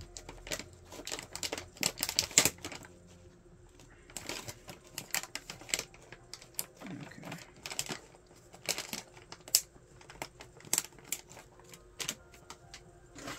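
Irregular light clicks, taps and some crinkling from tea things being handled on a table, with a few sharper knocks.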